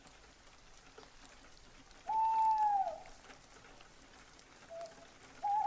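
An owl hooting: a clear held note about a second long that dips at its end, and a second hoot starting near the end, over a faint steady hiss of rain.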